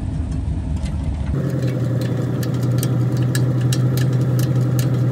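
Pickup truck engine idling, with a steady hum and a light, somewhat irregular ticking. The sound changes abruptly about a second and a half in.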